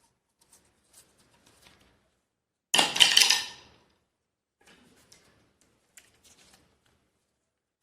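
Handling noises: scattered light clicks and taps, with one loud clattering rattle about three seconds in that lasts about a second and fades. No vacuum motor is running.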